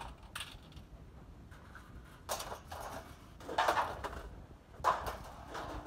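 Scrap metal pieces clanking and rattling as they are dropped onto the ground, in several separate clatters, the loudest in the middle and near the end.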